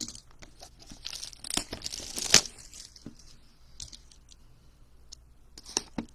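Plastic trading-card wrapping being torn and crinkled by hand: a dense run of crackling and tearing peaking sharply about two and a half seconds in, then a few light clicks and a short rustle near the end.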